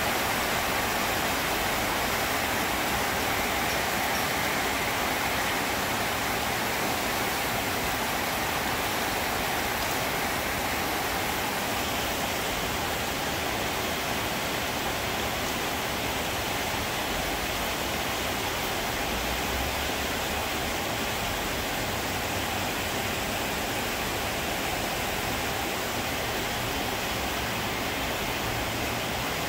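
Steady rain falling on trees and corrugated metal roofs, an even hiss with no let-up.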